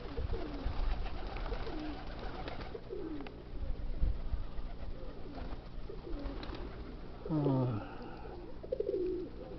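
Domestic pigeons cooing, with several short descending coos scattered through; the loudest comes near the end. A low wind rumble sits underneath.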